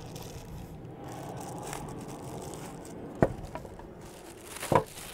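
Clear plastic bag crinkling and rustling as a metal-cased battery charger is worked out of it by hand, with two sharp knocks, one about three seconds in and one near the end.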